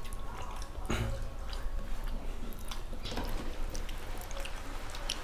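Wet eating sounds of soft, starchy fena bhat: fingers squishing and mixing the rice on plastic plates, with scattered small smacks and clicks of chewing over a steady low background.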